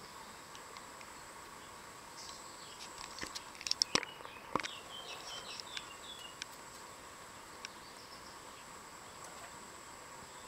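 Outdoor ambience with a steady high insect drone. About four seconds in comes a quick cluster of sharp taps and clicks, then a few brief bird chirps.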